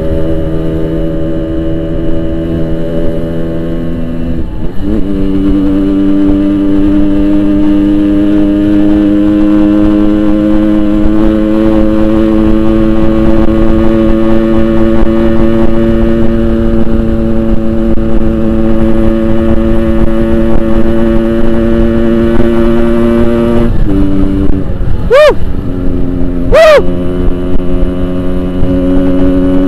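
Yamaha RX-King 135cc two-stroke motorcycle with a Boban aftermarket exhaust, ridden at a steady engine speed; the pitch steps up about five seconds in and drops back near the end. Two quick, sharp revs follow, about a second and a half apart.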